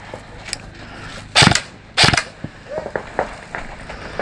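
Airsoft guns firing: two loud short bursts about half a second apart, each a quick run of shots, followed by fainter scattered clicks.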